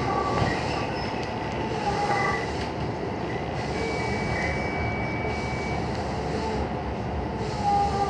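Running noise of a JR West 221 series electric train heard from inside the carriage: a steady rumble of wheels on rail at reduced speed. Short, thin wheel squeals come and go on the curves, with one longer squeal lasting about two seconds near the middle.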